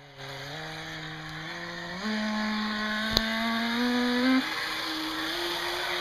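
Brushless electric motor of an NQD RC jet boat whining, its pitch climbing in steps as the throttle is opened, with one sharp click about three seconds in. The motor's bearings are rusty and were oiled before the run; the owner says it sounded awful.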